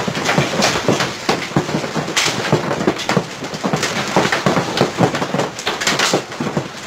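Heavy hail pelting down, a dense, irregular clatter of hard hits with no let-up.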